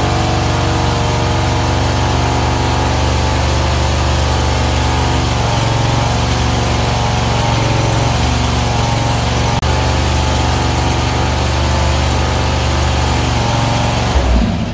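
Predator air-cooled V-twin gasoline engine running steadily, then shut off near the end and winding down.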